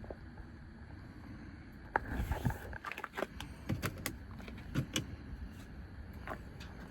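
Scattered light clicks and knocks, with a short rustle about two seconds in.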